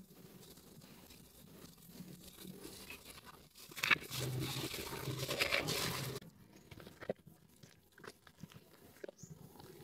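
Hands kneading and squeezing soaked, mushy Nuvo Red soap with kitchen sponges in a bowl: wet soap-paste sounds. It is soft at first, turns loud for about two seconds in the middle, then drops back to scattered small clicks.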